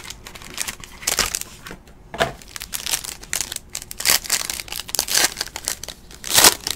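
Foil trading-card pack crinkling as it is handled and torn open: a run of irregular crackles, the loudest near the end.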